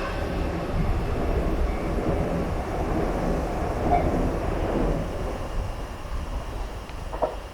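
JR Nambu Line electric commuter train rolling away past a level crossing, its low rumble slowly fading.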